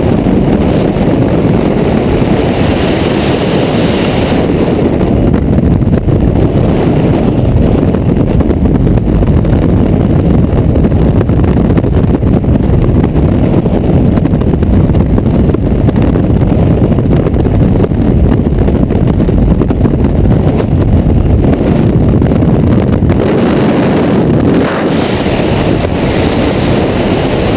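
Loud, steady rush of freefall wind buffeting the camera microphone during a tandem skydive.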